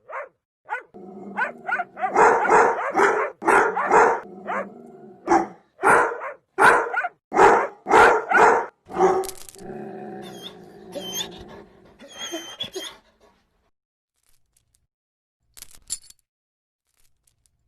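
A dog barking repeatedly, two or three sharp barks a second for about nine seconds, then a few softer, higher whimpers.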